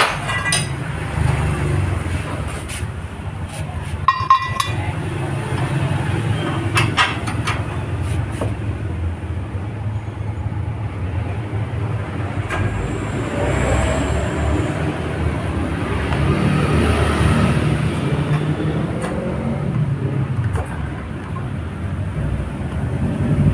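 A steady low mechanical rumble with a few sharp metallic clinks, one ringing briefly about four seconds in.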